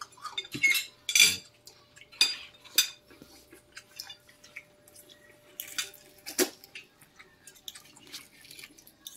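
Forks and spoons clinking and scraping against plates, in scattered taps with a few louder clinks about a second in and again past six seconds.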